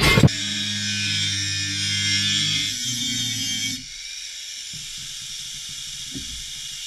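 Electric angle grinder with a cutting disc running and cutting through steel plate: a steady motor hum under a bright, hissing cut. About four seconds in it drops in level as the disc comes off the metal and spins on.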